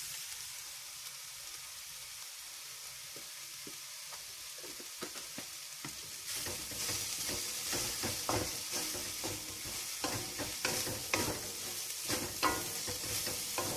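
Soya chunks frying in coconut oil in a metal kadai, a soft steady sizzle. About six seconds in, a spatula starts stirring them, adding repeated scrapes and knocks against the pan over a louder sizzle.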